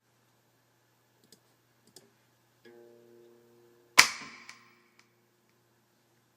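Guitar being handled before the song: a few faint clicks, a soft note ringing for about a second, then one sharp, loud strum about four seconds in that rings out and fades quickly.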